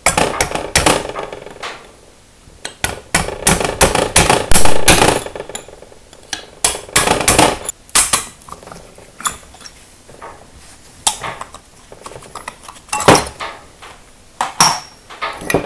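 Sharp metal knocks and clinks of a punch and tools on a cast-iron Sumitomo S16 twin-pot brake caliper as the brake-pad retaining pins are driven out, coming in irregular clusters that are thickest in the first half and sparser later.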